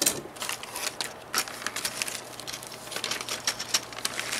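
Plastic parts bag crinkling while the black delta-printer arms are handled and knock together: a quick run of irregular light clicks and rustles, loudest right at the start.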